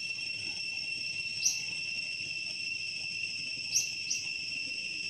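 Steady, high-pitched drone of insects, with a few short, sharp high chirps about a second and a half in and again near the end.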